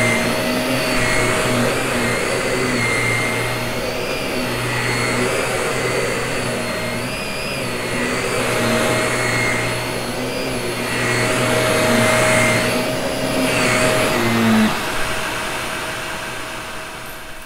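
Vacuum cleaner running, its motor pitch wavering slightly up and down. The motor is switched off about fifteen seconds in and winds down.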